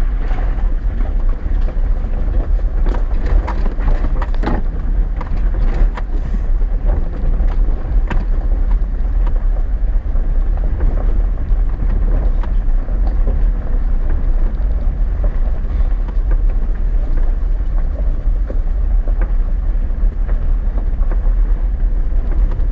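Chevy Silverado 4x4 pickup driving over a rough, rocky dirt road, heard from inside the cab: a steady low rumble of engine and tyres with scattered knocks and rattles from stones and the suspension, most of them in the first several seconds.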